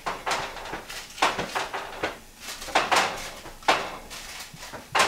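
Kitchen clatter: irregular knocks and scrapes of dishes, pans and utensils being handled, about a dozen in a few seconds.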